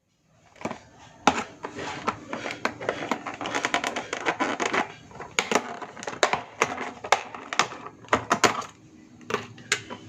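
Kitchen clatter: a rapid, irregular run of clicks and knocks, loudest about a second in and thinning out near the end.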